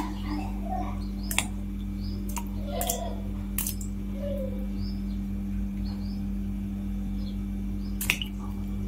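Whole small bitter gourds dropped one at a time into water in a metal wok, each landing with a short sharp plop, about six over the stretch with the loudest about eight seconds in, over a steady low hum.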